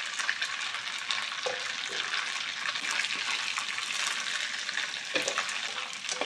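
Dried anchovies (ikan bilis) frying in hot oil in a wok: a steady sizzle with fine crackling as a wooden spatula stirs them, with a couple of brief knocks of the utensils against the pan.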